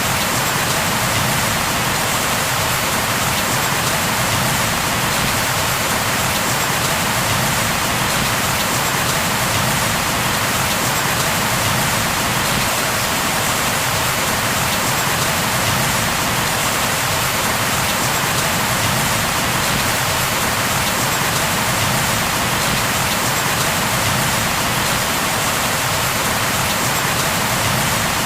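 Steady heavy rain falling on a surface, an even hiss of countless drops with no change in strength.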